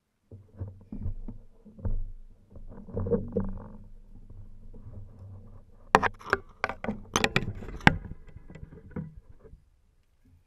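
Handling noise on the camera: low muffled thumps and rubbing, then a run of sharp knocks about six to eight seconds in as the fishing rod bumps against the camera.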